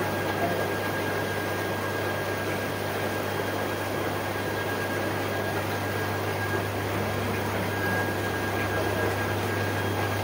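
Steady low hum with an even hiss and a faint high whine: the running equipment of an aquarium fish shop (tank air pumps, filters and cooling).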